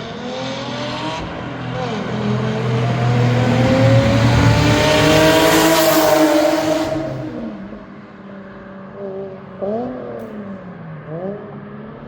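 Toyota SC300's 2JZ straight-six, fitted with new aftermarket headers and exhaust, accelerating with its note rising steadily and loudest about four to six seconds in, then easing off. Near the end two quick throttle blips rise and fall.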